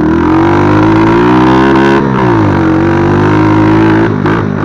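110 cc mini quad's engine running under throttle, its pitch holding high, dropping about two seconds in and holding lower, then breaking up near the end.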